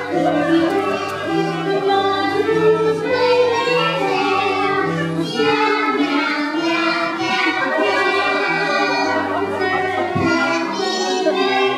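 A group of voices singing with instrumental accompaniment, a steady bass line holding long notes beneath the melody.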